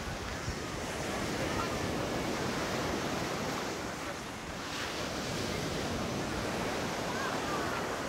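Steady rush of surf from a rough sea, with wind rumbling on the microphone.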